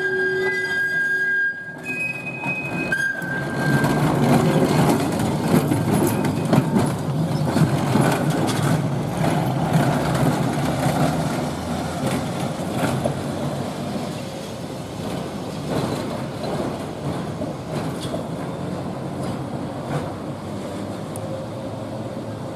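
Vintage electric streetcar No. 4533 rumbling along its track, its wheels clicking over the rail joints. It grows loud a few seconds in, then slowly fades as it moves away. A few brief high-pitched tones come before the rumble starts.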